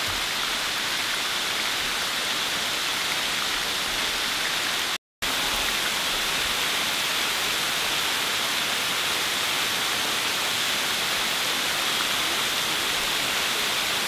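Steady rush of the Șipote waterfall, water streaming and splashing down a partly iced-over, mossy cliff. The sound drops out for a split second about five seconds in.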